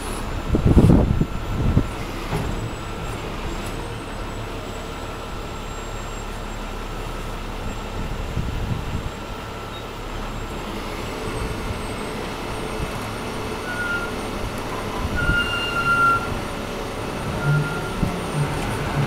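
Heavy truck running steadily while a mobile steel storm shelter is unloaded. There are two heavy low thumps about a second and two seconds in, and brief faint squeals near the end.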